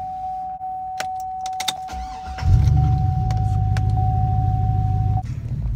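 GMC Denali's 6.0-litre V8 being started from inside the cab. There are a few key clicks, then it cranks and fires a little over two seconds in and settles into a deep, steady idle. A steady high beep sounds until near the end.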